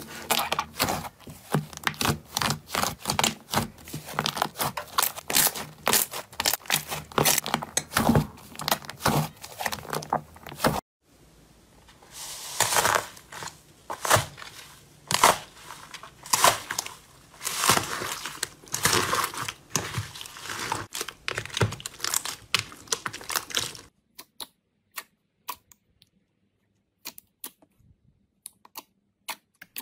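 Slime being squeezed and poked by hand, with crackling, popping clicks and crinkly squelches. The sound changes sharply about eleven seconds in and again near the end, where it becomes faint and sparse with scattered clicks.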